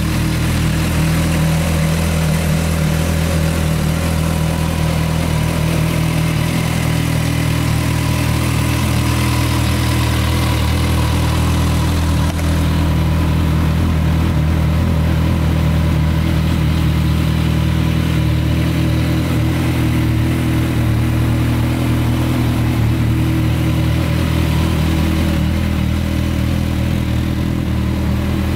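Suzuki GSX650F's inline-four engine idling steadily.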